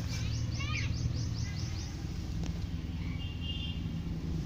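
Small birds chirping: a quick run of about eight falling chirps in the first two seconds and a short high trill a little after three seconds, over a steady low engine hum.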